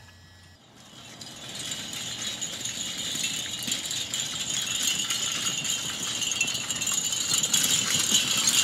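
Steady rattling and jingling from the dog-drawn wagon and its harness, faint at first and growing steadily louder.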